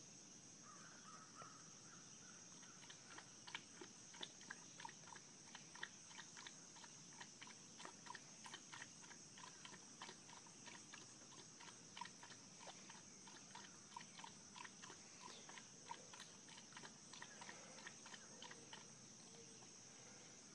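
Steady high chirring of crickets or other insects, with a run of short sharp chirps or clicks, two or three a second, starting about three seconds in and stopping near the end.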